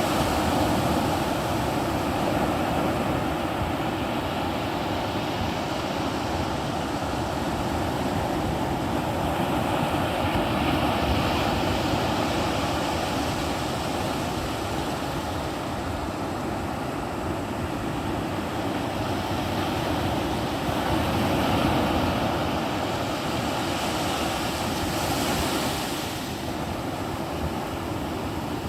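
Ocean surf: waves breaking and washing in a continuous roar that swells and eases slowly, a few times over.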